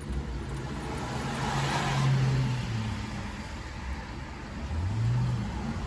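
A car driving past, its engine hum and tyre hiss on wet pavement swelling to their loudest about two seconds in and then fading. Another engine's hum rises in pitch near the end.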